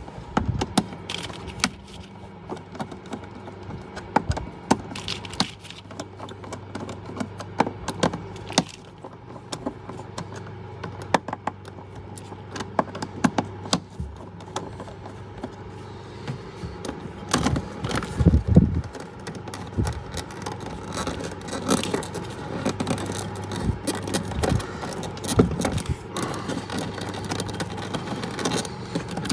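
Screwdriver and wires being worked in a metal electrical box: a run of small irregular clicks, taps, scrapes and rattles as cables are loosened from their terminals, with one heavier knock about two-thirds of the way through, over a steady low hum.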